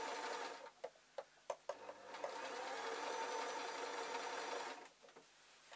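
Singer electric sewing machine stitching: it runs briefly, stops with a few sharp clicks, then runs again steadily for about three seconds before stopping near the end.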